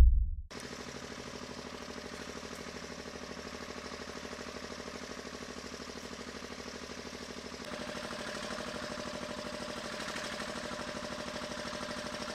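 An engine running steadily at idle with a fast, even pulse. It gets slightly louder about eight seconds in.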